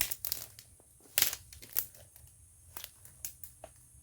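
Irregular crackling and rustling of dry vegetation being handled or trodden, a string of sharp crackles with the loudest a little over a second in.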